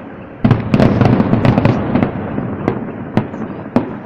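Aerial fireworks shells bursting: a dense volley of bangs about half a second in, then single bangs spaced out toward the end.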